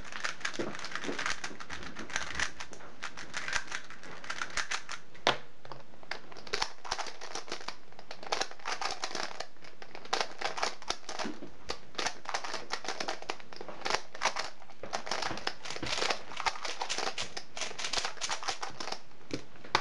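Plastic speed cubes being turned and scrambled by hand: rapid, irregular clicking and clacking of the layers.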